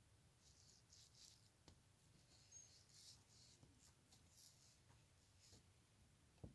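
Near silence: room tone with a few faint, soft rustles and a low bump near the end.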